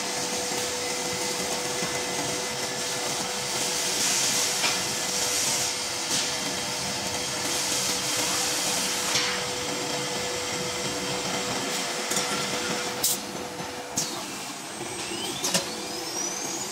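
Blue Elephant 2131 ATC CNC wood router running: a steady whir with a steady hum, louder hissing stretches a few seconds in, a few sharp clicks near the end, and a rising whine just before the end.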